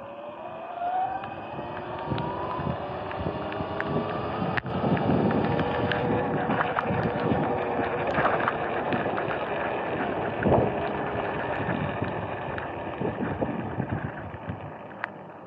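Sur-Ron X electric dirt bike riding along a street: its motor and drivetrain whine rises in pitch over the first few seconds as it speeds up, over a steady rush of tyre and wind noise. Scattered knocks and rattles from bumps, one sharper knock about ten seconds in.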